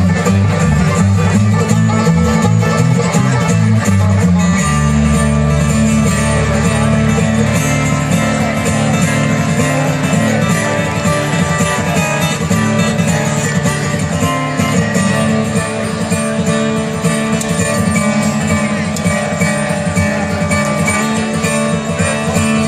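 Bluegrass band playing live, led by acoustic guitar and other plucked strings over a line of low bass notes that steps from pitch to pitch.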